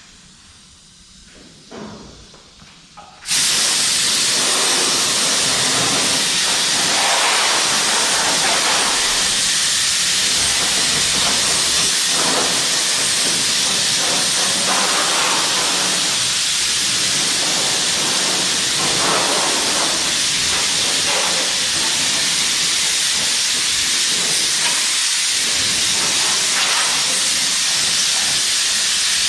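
Compressed-air blow gun blasting dust out of dirty shop equipment: one long, steady, loud hiss that starts about three seconds in and cuts off at the very end.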